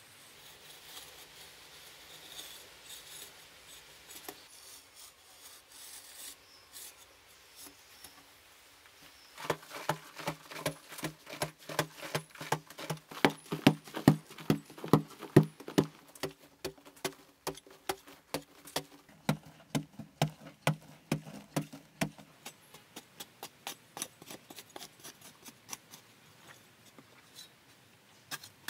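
Metal hoe blade scraping and chopping at a dry packed-earth wall in quick repeated strokes, about three a second, starting faint and becoming loud about nine seconds in.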